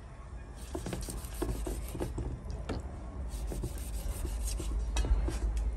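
A large knife scoring the skin and flesh of a whole cá tra (sutchi catfish): short, irregular rasping cuts, over a steady low rumble.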